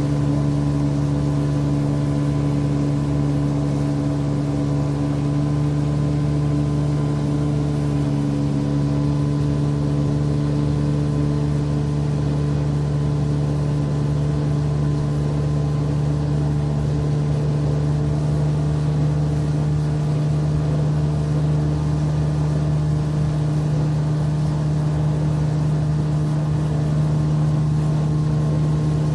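Motorboat engine running at a steady speed, a constant drone with no change in pitch, under a continuous rush of water.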